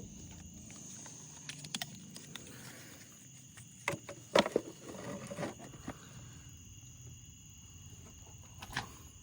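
Steady, high-pitched insect chirring, with a few light clicks and knocks about four seconds in and again near the end.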